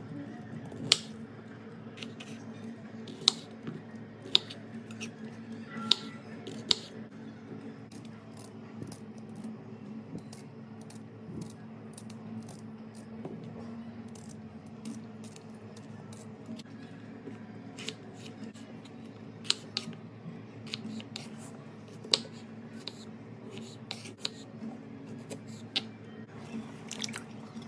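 Kitchen knife chopping carrots on a wooden cutting board: sharp, irregular knocks of the blade striking the board, several in the first seven seconds, fewer in the middle while a carrot is peeled by hand, and more again in the second half. A steady low hum runs underneath.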